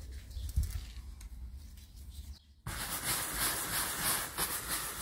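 Handling noises with a low thump about half a second in. Then, after a sudden cut, a brush scrubbing the wet, foam-covered vinyl convertible top in repeated strokes, louder than what came before.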